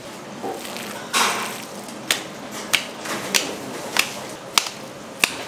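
A brief scraping rush about a second in, then a run of sharp, evenly spaced knocks, roughly three every two seconds.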